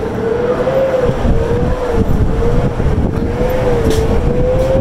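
Wind rumbling on a handheld phone microphone, growing stronger about a second in, with a steady tone underneath that wavers slightly in pitch.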